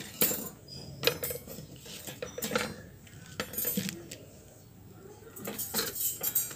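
Light metallic clinks and ticks from a wire fan guard being handled. A few scattered ticks come first, then a quieter stretch, then a quick run of ticks near the end.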